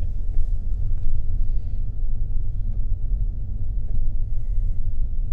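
Car driving slowly, a steady low rumble.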